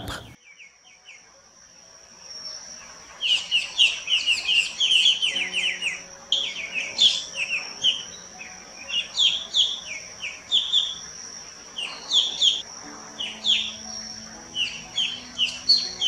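Square-tailed bulbul calling: a quick run of short, sliding, chattering notes in clusters, starting about three seconds in. A steady thin high-pitched tone continues underneath.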